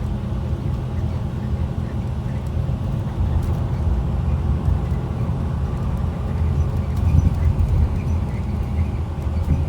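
The rear-mounted Navistar MaxxForce DT inline-six diesel of a 2012 IC RE school bus running as the bus pulls away, heard from inside the cabin as a steady low drone.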